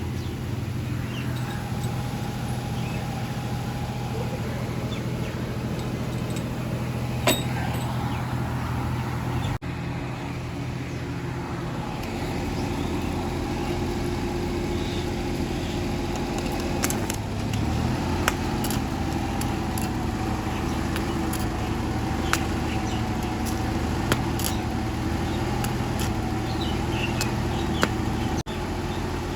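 An engine running steadily, with a sharp tap or click now and then.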